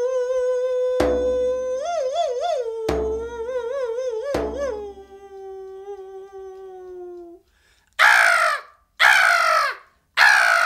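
A solo Siberian singer's voice holding a long, wavering, howl-like note with quick trills, cut across by three single drum strokes. The note slowly sinks and stops, and near the end come three harsh, falling, caw-like cries.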